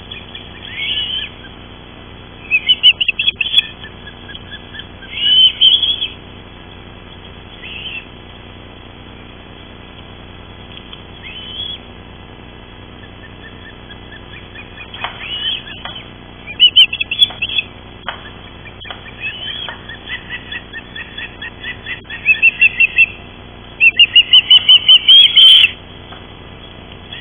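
Ospreys at the nest calling: several runs of short, high chirps repeated quickly, the longest and loudest run near the end.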